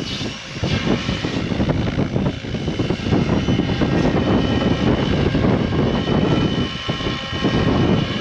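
Goosky RS7 electric RC helicopter in flight: the rotor blades whoosh with a fluctuating level over a faint, steady whine from the electric motor.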